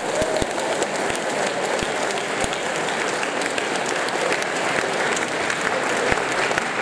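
Large audience applauding steadily in a hall, a dense clatter of many hands clapping.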